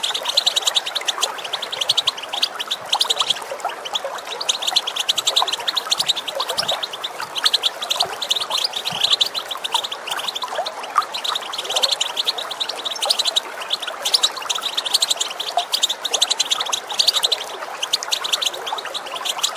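European goldfinches giving fast, chattering call notes in dense bursts over the steady rush of running water.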